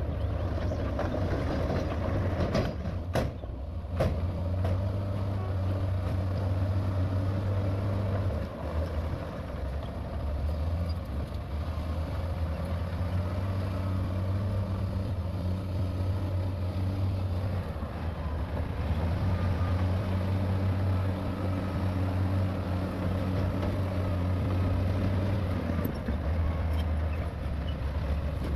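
Heavy diesel earthmoving machinery running at work, a low engine hum that swells and eases with load, with two sharp knocks about three and four seconds in.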